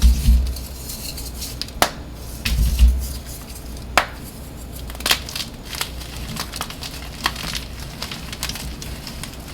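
Dyed blocks of gym chalk crushed and crumbled by hand. Dull low thuds from pressing, a run of small crackles, and a few sharp cracks as the blocks snap.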